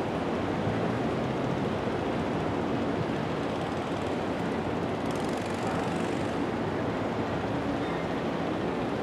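Steady low running of an approaching GE C30-S7 diesel locomotive's 16-cylinder engine, mixed with the noise of cars passing close by over the crossing. A brief hiss comes about five seconds in.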